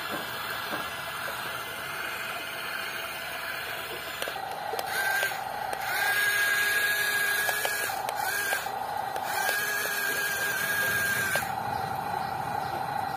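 Small electric gear motors of a Yigong RC toy excavator whining as it drives on its tracks. From about four seconds in the whine starts and stops several times.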